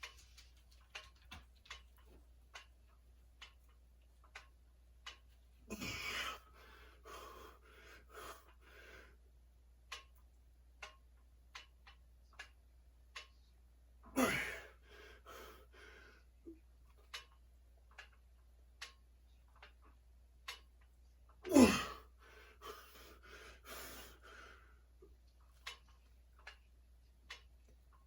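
A person breathing hard with three loud, forceful breaths about seven to eight seconds apart, each falling in pitch and trailing off into a hiss. Under them runs faint ticking, roughly once or twice a second.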